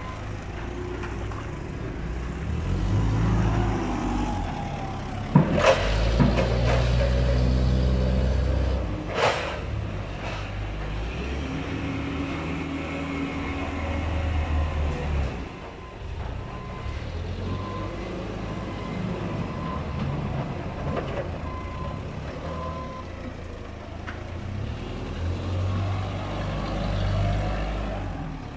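Hyundai forklift engine running and revving in several surges as it works over a steel mobile loading ramp, with two sharp metal clanks about five and nine seconds in. Its reversing beeper sounds in a run of short beeps in the second half.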